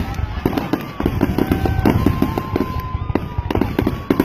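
Aerial fireworks exploding at close range: a dense run of sharp cracks and bangs, with a thin whistling tone through the middle.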